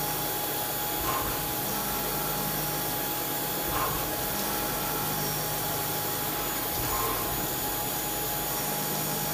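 HH Roberts TW40 4-axis CNC vertical machining center milling a part on its rotary table under flood coolant: a steady machine noise with a constant high tone over the hiss of coolant spray, swelling briefly three times, about a second, four seconds and seven seconds in.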